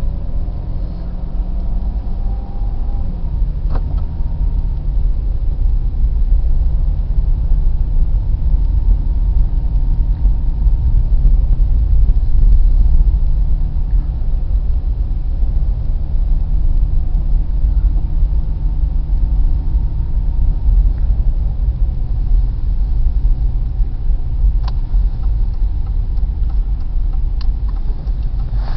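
A car driving slowly on a snow-covered road: a steady low engine and road rumble, the engine note shifting a little near the start, with a few faint clicks.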